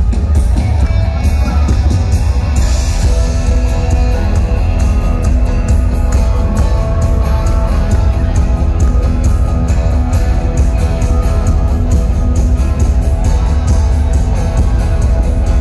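Live band music led by an acoustic guitar over a steady beat, recorded from within the audience, with heavy, booming bass.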